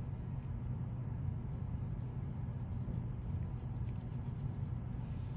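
Wet paintbrush rubbing over watercolor-pencil color on paper: soft, irregular scratchy strokes over a steady low hum.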